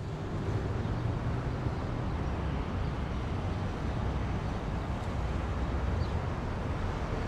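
Steady low rumbling background noise, like a running engine or traffic.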